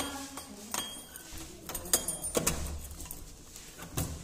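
A bunch of keys jangling and several sharp metallic clicks as a wooden room door with a lever handle is shut and locked with its key.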